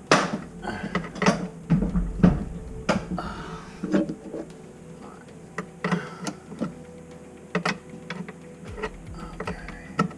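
Cordless screw gun backing screws out in short runs, with irregular clicks and knocks of metal hardware and tools being handled.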